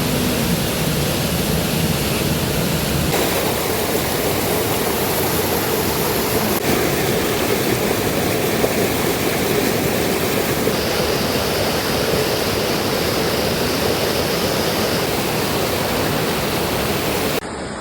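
Steady rushing water, a constant even flow with no surges. A faint high steady tone rises above it for a few seconds in the second half.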